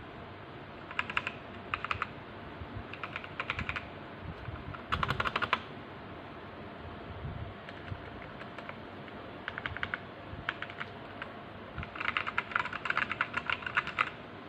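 Typing on a K68BT wireless mechanical keyboard with red linear switches: rapid runs of key clicks in several separate bursts, the longest near the end, over a steady background hiss.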